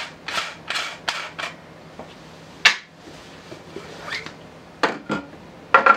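Hard rod case for a tenkara rod being opened: a few short rasping strokes as the cap is twisted off, then the rod in its cloth sock drawn out of the tube, with a few sharp clicks and knocks.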